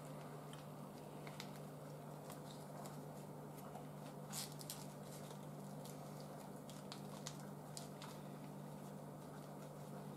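Faint small clicks and taps of food and dishes being handled on a counter, over a steady low hum; the clearest tap comes about four seconds in.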